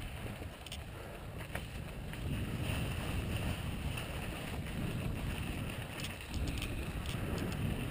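Santa Cruz Tallboy LT mountain bike rolling over a sandy, gravelly dirt trail: a steady rumble of tyre and wind noise on the camera microphone, with scattered clicks and rattles from the bike.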